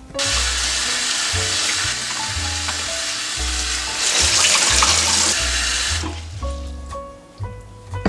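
Kitchen tap running into a glass bowl of strawberries in the sink, the water splashing over the fruit as it is rinsed. It is loudest about four seconds in and stops about six seconds in when the tap is turned off.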